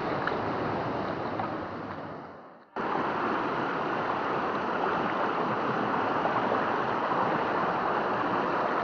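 Steady rush of flowing water. It fades down about two and a half seconds in, then cuts straight back in at full level.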